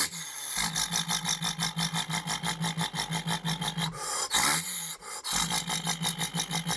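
A man's vocal impression of a 2007 GMC Duramax diesel idling, made with his mouth: a fast, even chugging of about nine beats a second over a steady low hum, broken briefly twice about four and five seconds in.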